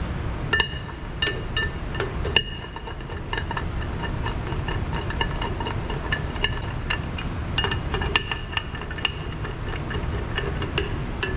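Irregular metallic clinks and ticks of hand tools against metal valve and pipe fittings, several ringing briefly, over a steady low rumble.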